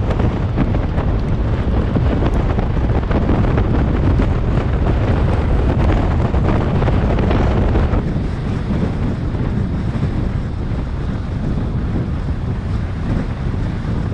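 Wind buffeting the microphone of a camera mounted on the outside of a moving Subaru XV, with a steady low rumble of tyres rolling over a loose dirt track. The roar eases slightly about eight seconds in.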